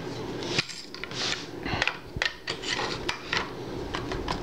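Steel parts of a Uk vz. 59 machine gun scraping and clicking together as the pistol grip assembly is worked onto the receiver: a run of short metallic clicks and rubs.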